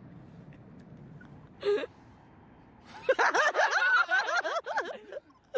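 Two young men laughing loudly together in long, wavering peals, breaking out about three seconds in.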